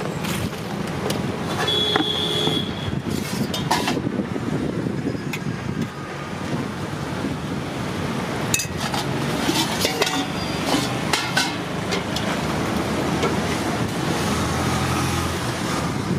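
Roadside street ambience: steady traffic noise with scattered sharp clicks and knocks, and a brief high tone about two seconds in.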